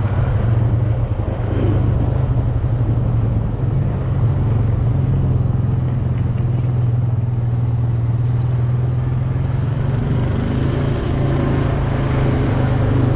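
Motorcycle engine running at a steady speed while riding, heard from on board the bike.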